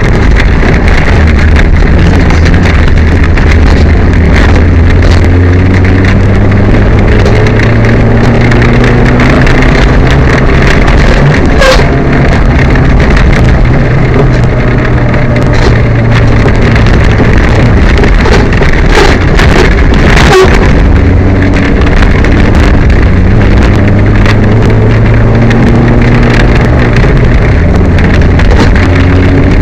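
Peugeot 205 rally car heard from inside the cabin at stage pace, its engine running loud and its pitch rising and falling through the gears, with sharp knocks and rattles from the car over the stage. The engine is misfiring.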